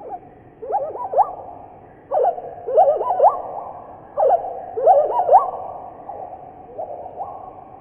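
Reconstructed Microraptor hanqingi call made from processed songbird recordings (Palestine sunbird and bulbuls): low chirping notes that rise and fall quickly, in three bursts about a second and a half apart, then a fainter one near the end.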